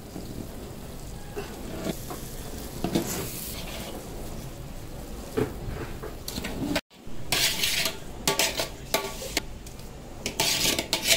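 Perforated metal ladle stirring and scraping wet, half-cooked biryani rice in a large metal pot, with clanks of the ladle against the pot's side. The sound breaks off for an instant about seven seconds in, and the scraping and clanking are busier after that.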